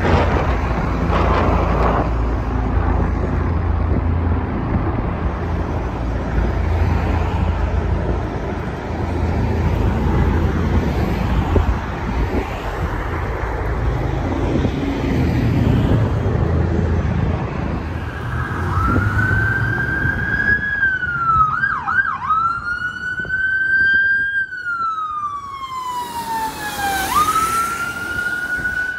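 A low, steady rumble of a helicopter flying low overhead. Then, from about two-thirds of the way in, a police car's electronic siren wails, breaking into a few fast yelps partway through as the car drives past.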